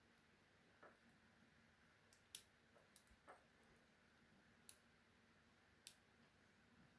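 Faint, irregular small metallic clicks of a lock pick working the pin tumblers of a padlock under tension, about seven in all, the loudest a little over two seconds in.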